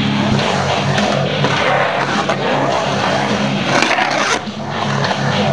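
Skateboard wheels rolling over the concrete of a bowl, a steady rumble, with a scrape and clatter of the board against the coping about four seconds in.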